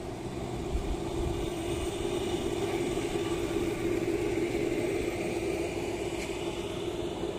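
A steady mechanical hum that grows louder through the middle and eases off near the end.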